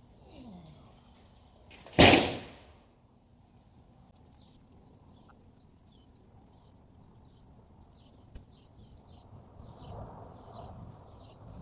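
One heavy thump about two seconds in, sharp and loud with a short ringing tail. Birds chirp in quick, high, falling notes through the second half.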